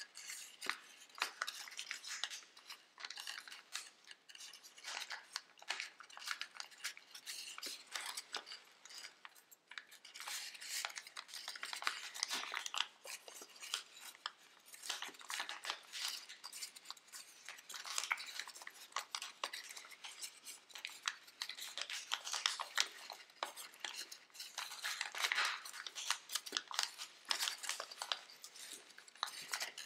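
Sheets of thin origami paper crinkling and rustling as they are pinched, creased and shaped by hand, a run of irregular small crackles with no steady rhythm.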